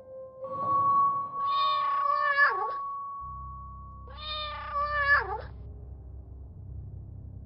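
A cat meowing twice, two long drawn-out meows that drop in pitch at the end. Under them a held tone of background music runs until about halfway, and a low drone comes in about three seconds in.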